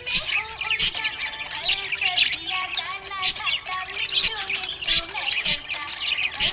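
Several small pet parrots chattering together: a constant stream of warbling chirps, broken by frequent short, shrill squawks.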